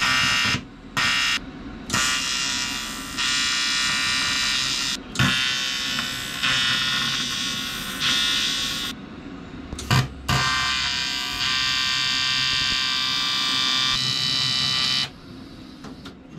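Electric arc welder welding an aluminium plate, a steady electric buzz in several runs of a few seconds each with short breaks where the arc stops, the last run ending about a second before the end.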